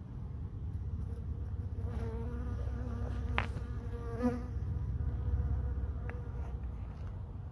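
Bumblebee buzzing in flight, a humming tone that comes in about two seconds in and dies away after about four and a half, broken by two sharp clicks, over a low rumble.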